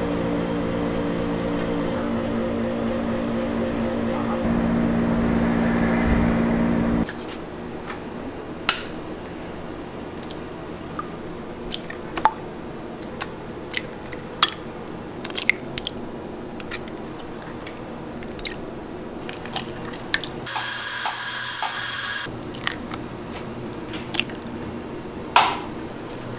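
A steady low hum of several droning tones, swelling about four seconds in, cuts off abruptly about seven seconds in. Then eggs are cracked one after another against a stainless steel mixing bowl: short sharp cracks every second or so, with a louder click near the end.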